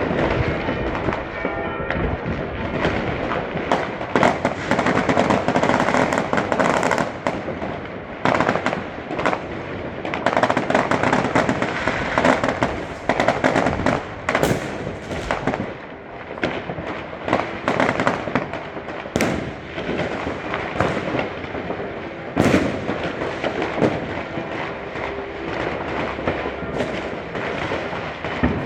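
New Year's Eve fireworks and firecrackers going off all around in a continuous barrage of bangs and crackling, with sharp louder bangs just after the start and about 22 seconds in.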